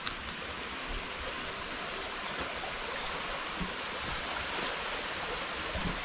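Steady outdoor garden ambience: an even hiss with a thin, steady high tone running through it.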